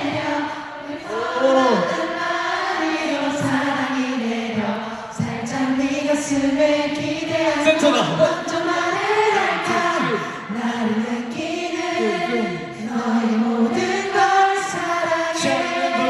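A group of voices singing a song together, the melody rising and falling throughout.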